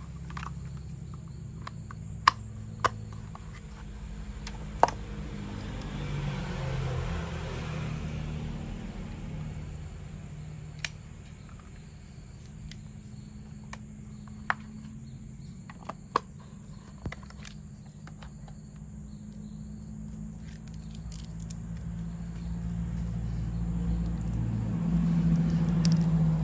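A few sharp, separate clicks of plastic toy-train parts being handled and fitted, over a steady low hum that grows louder near the end.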